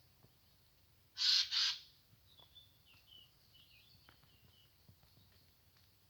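A bird gives two harsh, rasping calls back to back about a second in, the loudest sound here. Faint chirps of small birds follow in the background.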